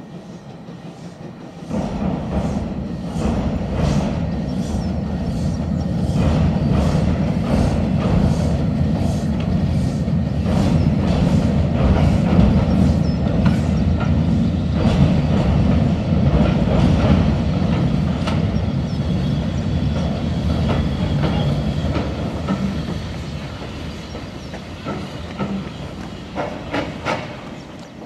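Steam-hauled passenger train crossing a steel bridge: a heavy rumble that starts suddenly, with the wheels clicking over the rail joints in a regular rhythm, then fades as the last coaches pass, leaving a few separate clicks near the end.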